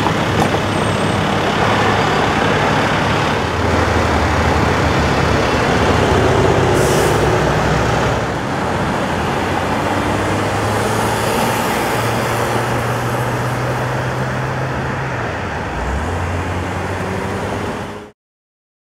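Road traffic: cars and trucks driving past on a busy road, a steady rush of tyres and engine hum. It cuts off suddenly near the end.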